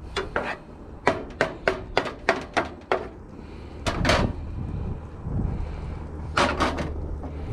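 A utensil clicking and knocking against a frying pan: a quick run of light taps, about four a second, then two louder knocks a couple of seconds apart.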